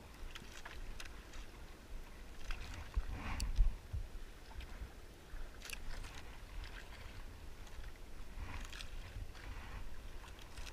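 Small waves lapping and splashing against the hull of a drifting outrigger fishing boat, with wind rumbling on the microphone. A louder thump about three and a half seconds in.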